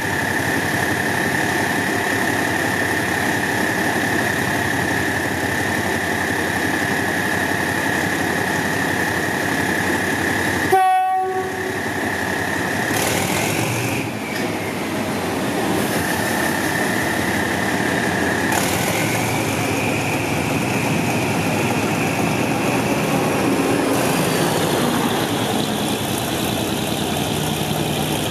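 Diesel-electric locomotive running under load as it pulls a passenger train past, with a steady high whine over the engine noise that shifts pitch a few times. There is a short break about eleven seconds in.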